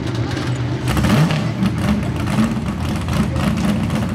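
Small-block V8 engine of a 4,500 lb 4x4 pulling truck, running at a steady pitch, then revving up about a second in and held at high revs.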